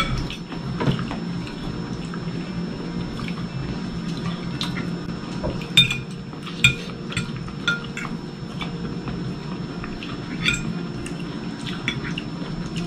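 Forks and a spoon clinking and scraping on ceramic dinner plates as two people eat, with scattered light clinks and a few sharper ones.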